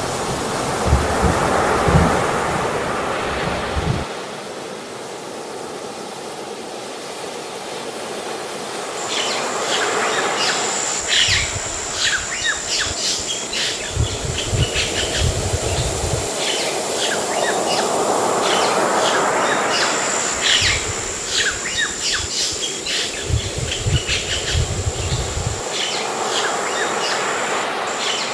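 Ocean surf washing in slow swells every several seconds, with low rumbles. From about nine seconds in, a steady high insect whine and rapid bird chirps join.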